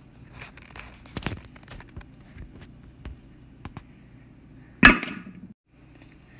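Scattered small clicks and rubbing, then one sharp, loud pop from a red dome popping about five seconds in. The pop rings briefly and cuts off suddenly.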